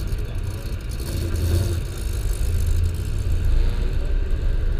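Car engine running at idle, a deep, steady note heard from inside a car's cabin.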